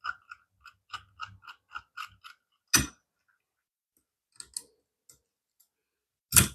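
Screwdriver clicking in a quick, even series, about four clicks a second, as a lock's mounting screw is driven in. Then a sharp knock, a few more faint clicks, and a louder clatter of knocks near the end.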